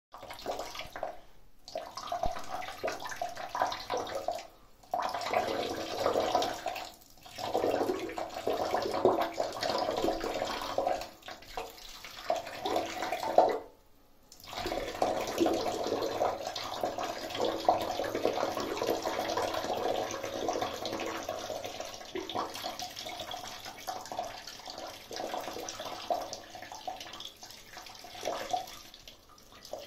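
A stream of urine splashing into the water of a toilet bowl. It breaks off briefly several times and thins out near the end.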